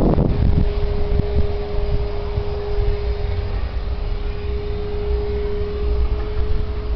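Wind buffeting the microphone, heard as a deep uneven rumble, with a thin steady tone held underneath.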